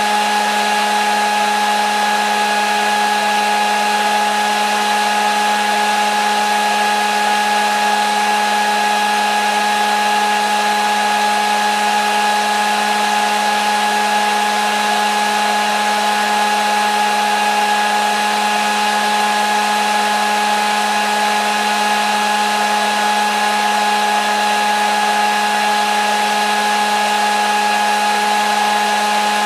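Hair dryer running steadily: a constant motor hum and whine over an even rush of blown air, unchanging throughout.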